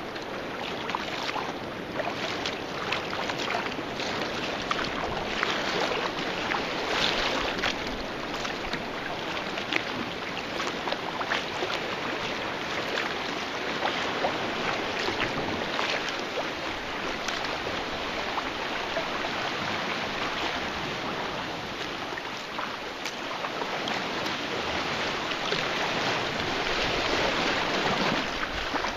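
Sea kayak under way: water splashing and lapping around the hull and paddle, with many small drips and splashes and sea washing against nearby rock, growing a little louder near the end.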